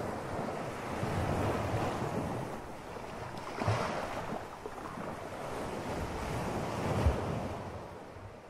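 Ocean surf on a beach: waves breaking and washing in as a steady rush that swells several times, most strongly near four seconds and again around seven seconds, then fades near the end. Wind on the microphone runs underneath.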